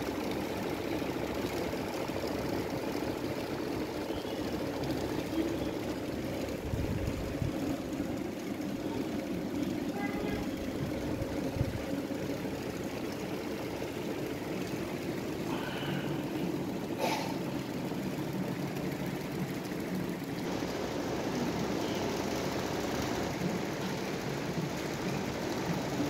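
Several electric pedestal and table fans running together: a steady whir of motors and blades, with one short click about 17 seconds in.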